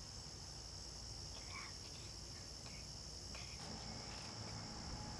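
Steady insect chorus, a constant high-pitched trill of crickets, over a low background rumble.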